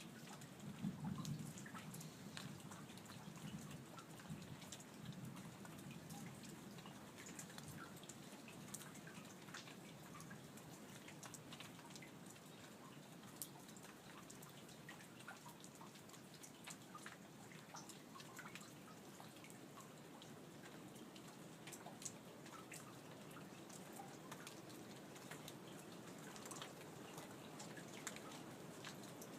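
Light rain falling, with many scattered drips ticking irregularly against a faint steady hiss. A faint low rumble swells in the first couple of seconds.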